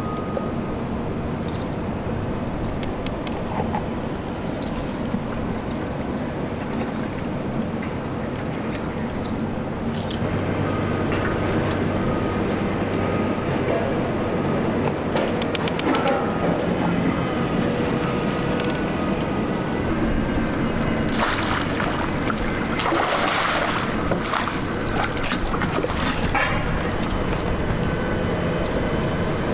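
Steady low background noise of open water, with a stretch of splashing about 21 to 25 seconds in as a hooked king salmon thrashes at the surface beside the kayak.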